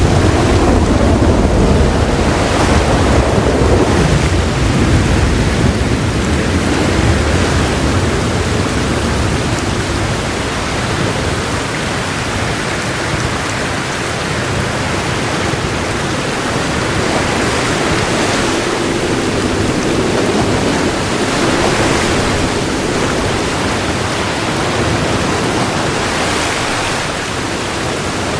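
Heavy rain falling in a steady, dense hiss, with a low roll of thunder during the first few seconds that fades away.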